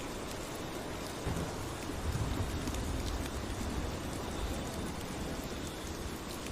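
Steady rain falling, with a low, soft roll of distant thunder that rises about a second in and dies away a few seconds later.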